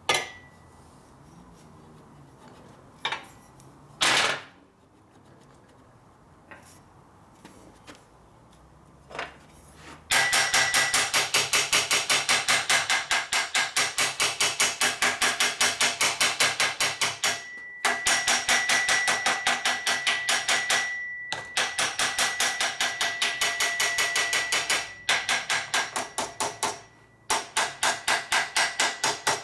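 Steel hammer striking a steel exhaust pipe laid on a vise, knocking an out-of-round section back into shape. A few separate blows come first; then, about ten seconds in, a fast steady run of about three to four blows a second sets in, with a ringing metal tone and a few brief pauses.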